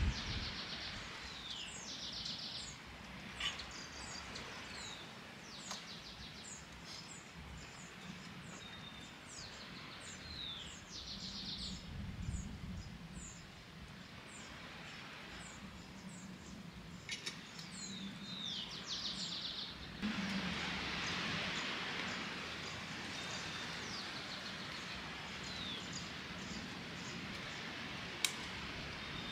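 Birds chirping with many short, high, falling calls and a few fast trills, over a background hiss that grows louder about two-thirds of the way through. A single sharp click comes near the end.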